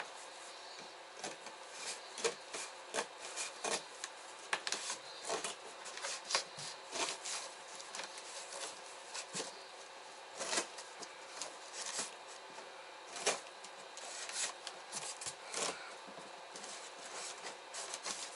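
Scissors cutting through a cardboard box, with irregular crunching snips and scraping of the cardboard.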